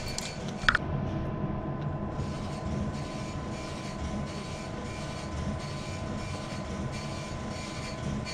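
Steady low rumble and machine hum of an ATM lobby, with a thin steady tone over it and a short chirp just under a second in.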